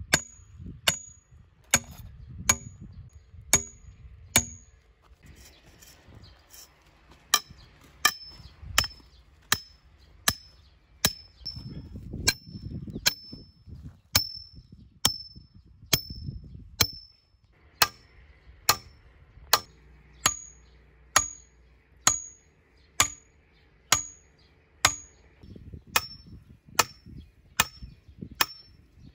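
Steel pipe stakes being hammered into the ground: a sharp metallic strike about every three-quarters of a second, each one ringing briefly and high.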